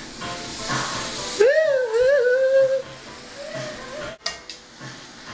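Background music with a steady beat. About a second and a half in, a loud wavering held note sounds for over a second, followed by a shorter note and two sharp clicks a little after four seconds.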